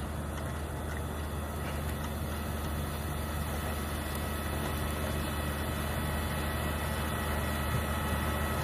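A vehicle engine running steadily: a constant low hum under an even hiss.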